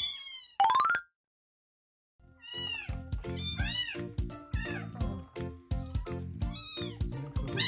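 A short rising chime sound effect, then about a second of silence, then a kitten meowing over and over in high cries, with background music and a steady beat underneath.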